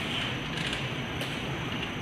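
Subway train standing at the platform with its doors shut: a steady hum and hiss from the train and station, with two light clicks, one about two-thirds of a second in and one at about a second and a quarter.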